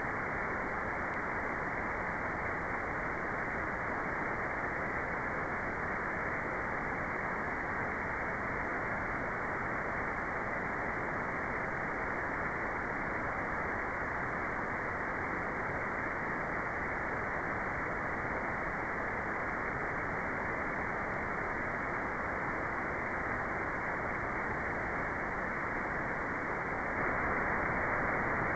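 Steady synthetic white noise, filtered so that it sounds muffled with no high hiss. It gets slightly louder near the end.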